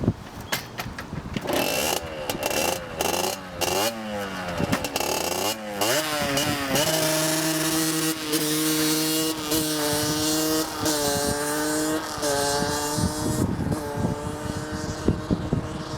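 50cc two-stroke engine of a Derbi Xtreme through a Tecnigas Enox expansion exhaust, first revved in several quick throttle blips, then pulling hard with the pitch climbing and holding high. There are two brief dips partway through, and it eases off near the end.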